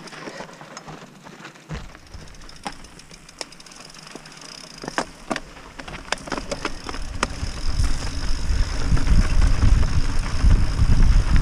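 Mountain bike rolling down a rocky dirt singletrack, with scattered clicks and rattles from the bike and stones. From about halfway the tyre rumble and wind noise grow steadily louder as the bike picks up speed.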